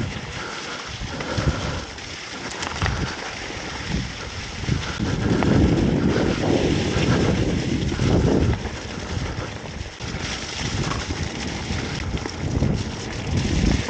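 Mountain bike rolling fast down a snow-covered dirt trail: wind buffeting the microphone and tyre rumble that swells and dips, with a few short knocks as the bike hits bumps.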